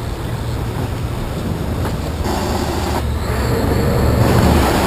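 Boat engines running steadily under way, with wind and rushing water over the rumble; the water noise swells near the end.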